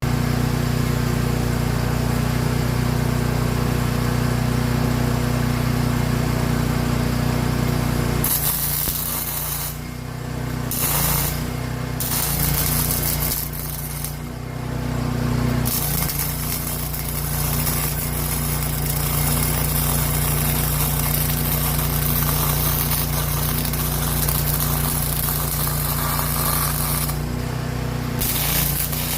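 Angle grinder running against steel, a steady motor hum under a gritty grinding noise, with the note and grit shifting several times as it bites in and eases off; it is cutting or grinding through the lintel welds so the pieces can be redone.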